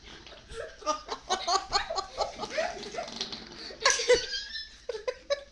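Giggling and laughter in short bursts, with a louder sudden burst about four seconds in.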